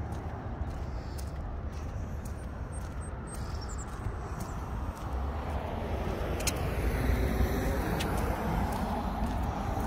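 Road traffic going by on a busy street, a steady rumble of tyres and engines that swells as a vehicle passes close about seven seconds in.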